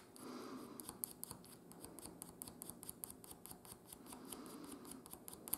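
A pencil scribbling on a small wooden part, rubbing graphite onto it as a dry lubricant where it will rub against a pin. Faint, quick scratching strokes, about six a second.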